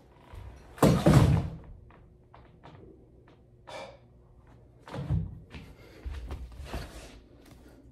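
Heavy packed military rucksack being handled: a loud thud with a rustle of nylon gear about a second in as the packed IOTV vest is forced into the large ruck, then scattered rustles and softer thumps, with footsteps on the floor near the end.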